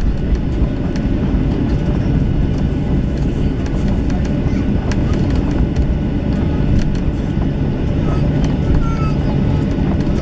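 Steady cabin noise inside a Boeing 737-800 as it taxis: a low, even rumble and drone from its CFM56 engines at taxi power and the airframe rolling over the taxiway.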